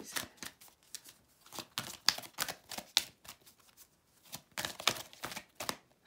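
A deck of animal spirit oracle cards being shuffled by hand: a run of quick papery slaps and flicks, coming in two spells with a short lull around the middle.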